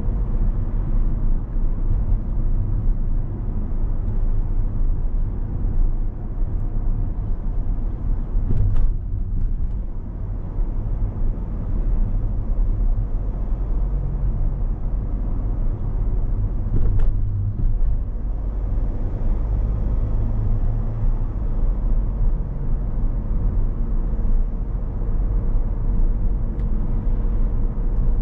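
A car driving at a steady speed, heard as a steady deep rumble of engine and tyres on the road with a faint constant hum. Two brief knocks come about nine and seventeen seconds in.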